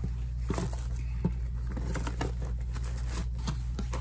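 Handling noise from a small cardboard shoe box and the canvas shoes in it: crinkling packaging with a string of light, irregular taps and clicks.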